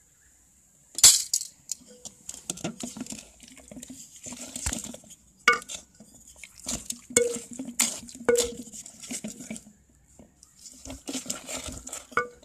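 Wooden dal masher churning cooked spinach dal in a metal pot: a run of knocks against the pot, some leaving a short metallic ring, with wet mashing in between. The loudest knock comes about a second in, and there is a brief pause near ten seconds.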